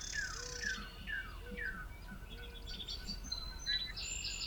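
Wild songbirds singing in the morning: a run of quick down-slurred whistled notes over the first two seconds, then a fast, high trill near the end.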